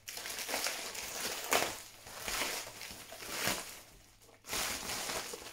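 Thin plastic mailer bag being torn open and handled, crinkling and rustling in irregular bursts with short pauses.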